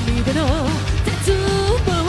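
Rock band backing track with drums and bass. Over it, a lead melody line wobbles with wide vibrato, then holds a note about two-thirds of the way in.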